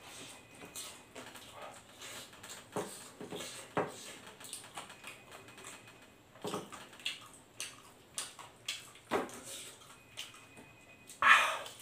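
Chewing and lip-smacking of someone eating fried chicken and rice by hand, with irregular short crunches and clicks; the loudest comes near the end.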